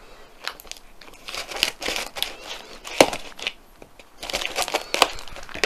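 Scissors snipping open a long parcel, the packaging crinkling and crackling irregularly, with a short pause a little before four seconds.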